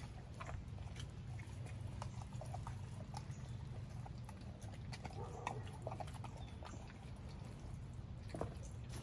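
Pit bull chewing and tearing at a whole raw chicken, with irregular wet clicks and snaps as its jaws work the meat.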